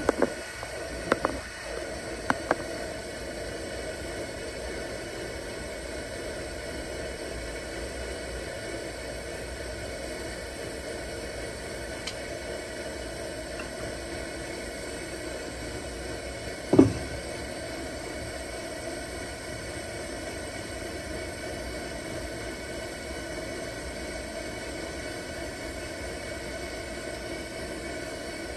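Preway P4521 camp stove's pressurized liquid-fuel burner running with a steady hiss under a lidded pot of water being brought to the boil. A few sharp clicks in the first couple of seconds and a single knock a little past halfway.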